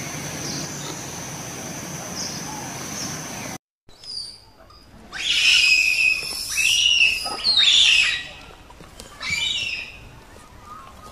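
Young macaque screaming: loud, high-pitched squealing calls that rise and fall over about three seconds, then one shorter call. Before them, a steady high hiss with a thin whine.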